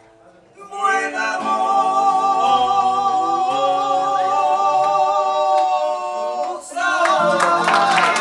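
Singing with acoustic guitar. About a second in, a long held sung note with vibrato begins and lasts several seconds, then breaks off into closing guitar chords near the end.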